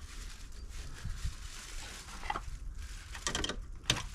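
Handling noise as stiff copper wires are worked into electrical terminals: faint rustling and scraping, with a few sharp clicks near the end.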